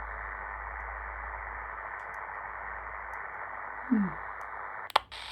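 Steady static hiss from the HamGeek ATS200 receiver's speaker, with no station tuned in, its top end cut off as by the receiver's narrow filter. A short falling tone comes through about four seconds in, and near the end a click is followed by a brief dropout before the hiss comes back.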